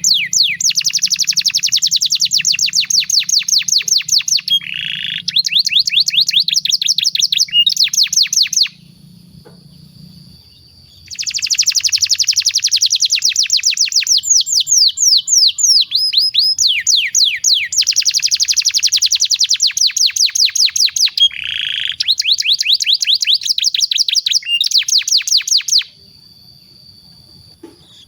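Domestic canary singing long, fast trills: rapid runs of repeated high notes, with a lower buzzy phrase twice. The song breaks off briefly twice, leaving only a faint thin whistle.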